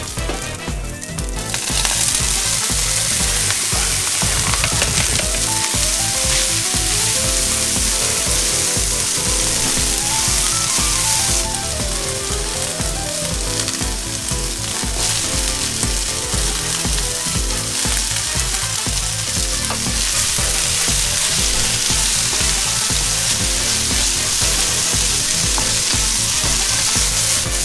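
Bean sprouts and chives sizzling loudly in hot oil in a wok and being stirred with a wooden spatula. The sizzle jumps louder about two seconds in.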